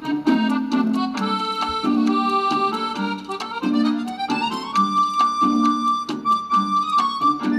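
Background music with a steady, repeating accompaniment beat under a melody, with a rising slide in pitch a little past the middle.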